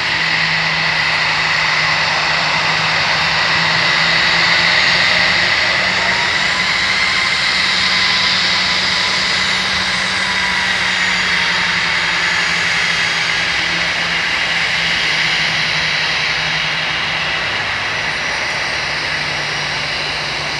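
Jet engines of a taxiing Airbus A320-family airliner running at low thrust: a steady rushing noise with a high whine and a low hum underneath.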